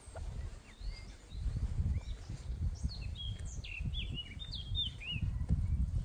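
Small songbirds chirping, with a quick run of twittering notes in the middle, over an uneven low rumbling on the microphone.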